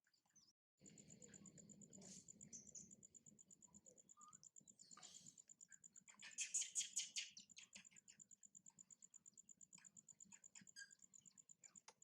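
Faint, high, evenly pulsing chirping that repeats several times a second, with a louder burst of chirps about six to seven seconds in, and scattered small clicks and taps.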